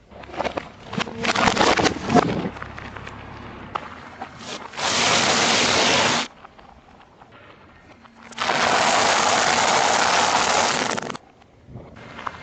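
Crackling and crunching as objects are crushed under a car tyre, then two stretches of steady hissing noise, the second longer and louder, starting and stopping abruptly.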